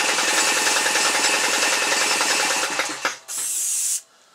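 Aerosol can of gloss clear spray paint spraying in one long, rough burst with a fast pulse, which stops about three seconds in. It is followed by two short, high-pitched hisses of spray.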